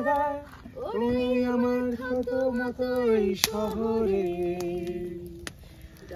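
A woman singing a slow Bengali song to her own acoustic guitar, holding long notes that step down in pitch and growing quieter near the end. A couple of sharp clicks cut through.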